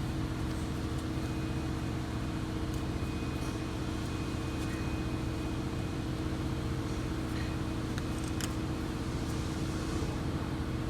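Steady mechanical hum with a couple of held tones, broken by a few faint, light clicks.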